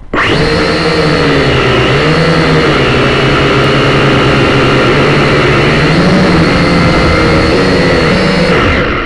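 Syma X5C quadcopter's four small coreless brushed motors and propellers whining loud and close, heard through the drone's own onboard camera. The whine starts abruptly, and its several pitches waver up and down as the throttle changes. It dips briefly near the end.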